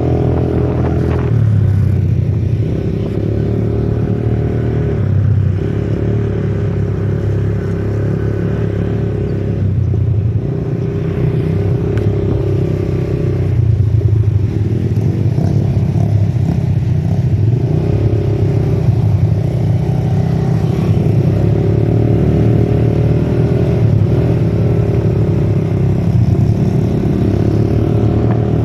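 ATV engine running under changing throttle, its pitch going up and down every second or two.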